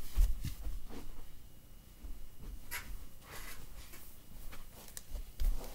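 Handling noise: a low bump right at the start, then scattered soft rustles and light taps, with more low bumps near the end.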